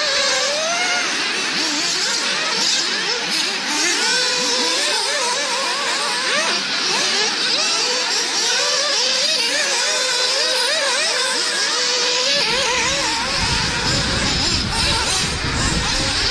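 Several nitro-engined radio-controlled off-road buggies racing, their small glow engines overlapping in a steady high whine that rises and falls as each one revs and lets off. About twelve seconds in, a low rumble joins underneath.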